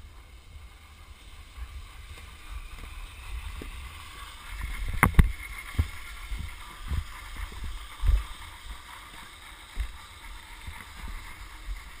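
Snowboard scraping and sliding on packed snow with a series of knocks, the loudest a sharp clack about five seconds in, over a steady low wind rumble on the microphone.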